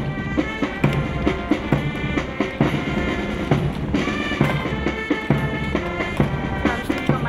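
Band music with a steady drum beat, bass drum and snare to the fore, under sustained melodic notes.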